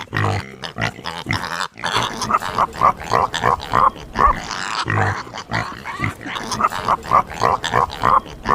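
Domestic pig grunting: a quick, continuous run of short grunts, a few each second.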